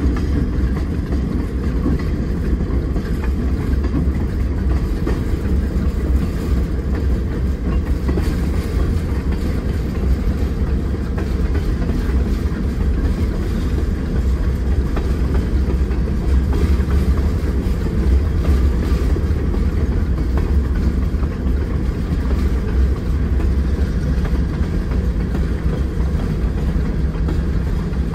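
Diesel freight locomotives rolling along the track, heard from inside a car keeping pace beside them: a steady low rumble of engines and wheels mixed with the car's own road noise.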